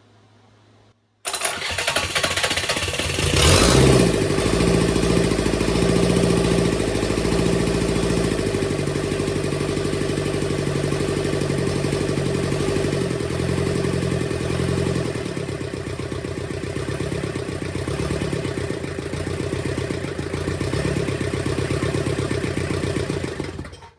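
Freshly rebuilt Kubota V2203 four-cylinder naturally aspirated diesel starting up: it comes in suddenly about a second in, runs up loudest a couple of seconds later, then settles into a steady run with no knock before cutting off abruptly near the end. This is the first run of an engine that had been seized and fire-damaged.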